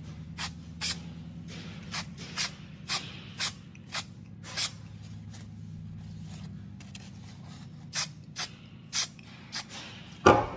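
Aerosol can of spray-on liquid electrical tape hissing in short bursts: a run of about eight quick sprays, a pause, then about five more, coating a soldered wire splice. A louder thump comes just before the end.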